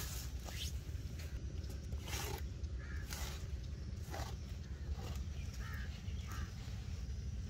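Flat metal hand scraper scraping and chopping into wet earth and grass roots, several separate strokes about a second apart. A crow caws a few times in the background.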